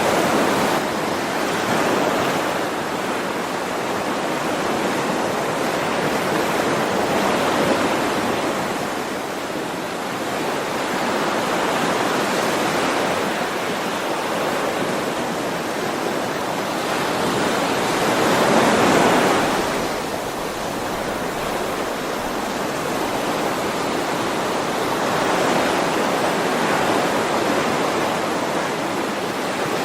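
Sea waves washing in, a continuous rush that swells every few seconds, with the biggest surge about two-thirds of the way through.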